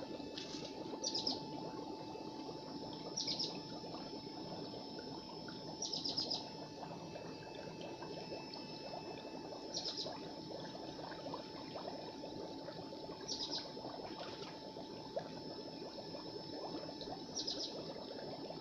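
Steady trickling and splashing of water in a fish pond. A bird gives a quick, high, stuttering chirp every two to four seconds.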